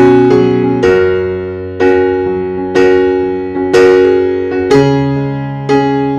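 Background music: slow piano chords, a new chord struck about once a second and fading before the next.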